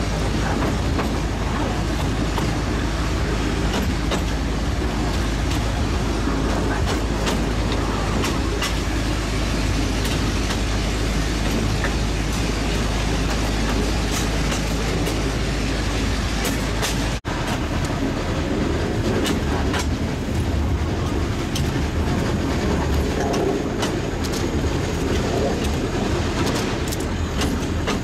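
Narrow-gauge (760 mm) steam locomotive running along the line, with steady train noise and scattered clanks from the train. It breaks off for an instant partway through and carries on.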